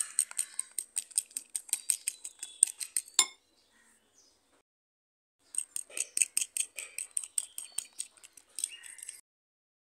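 A metal fork beats a raw egg mixture in a ceramic bowl, its tines clinking rapidly against the bowl about six or seven times a second. It comes in two bouts of about three and a half seconds each, with a pause of about two seconds between them.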